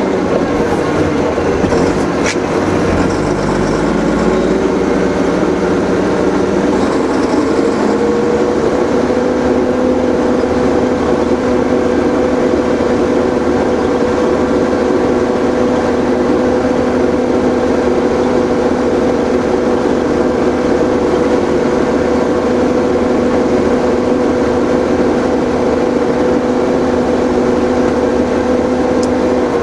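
Engine and road noise of a moving vehicle heard from inside it: a steady drone whose pitch rises about eight seconds in as the vehicle picks up speed, then holds steady.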